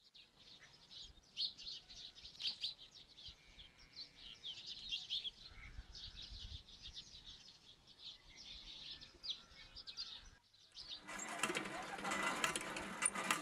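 Small birds chirping in quick, scattered calls. About eleven seconds in, after a brief break, a louder clanking and creaking starts as a hand water pump's handle is worked.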